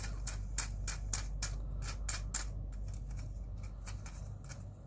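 A series of sharp, irregular clicks, about two or three a second, from small plastic parts of a radio-controlled car kit being handled and fitted, over a low steady hum.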